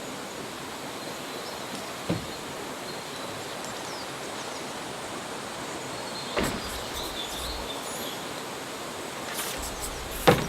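Steady outdoor background hiss with a few soft knocks and faint high chirps.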